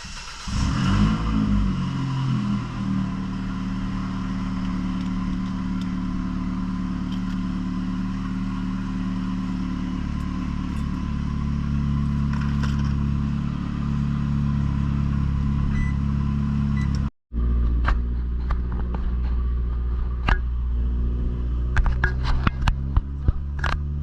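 Ford New Fiesta engine, breathing through an exhaust diffuser fitted ahead of the mufflers, flaring just after start-up and then settling into a steady, deep idle. Scattered sharp clicks and clatter sound over the idle near the end.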